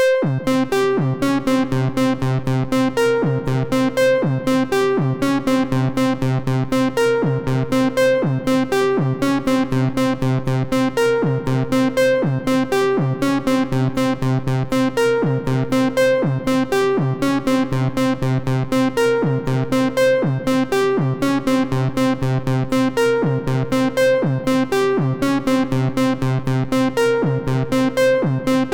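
Suspicious-style background music loop: a keyboard or electric-piano tune of short, evenly spaced notes, about four a second, over a steady bass line, its phrase repeating every couple of seconds.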